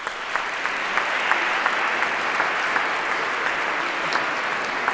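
Audience applauding: a dense, steady clapping that starts at once and keeps going.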